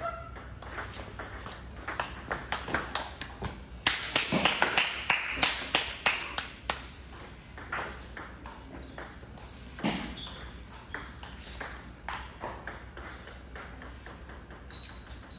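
Table tennis rally: the plastic ball clicks back and forth off the bats and the table in a quick, even rhythm, loudest and fastest just before the point ends about seven seconds in. A few scattered taps follow.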